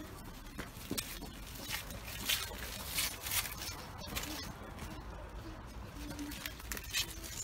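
Footsteps scuffing on pavement at an irregular walking pace, over a low steady outdoor rumble, with a few faint short hoots in the second half.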